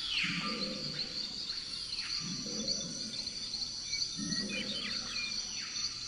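Designed alien-forest ambience: a steady chirring insect chorus, with bird-like calls recurring about every two seconds over a low rumble.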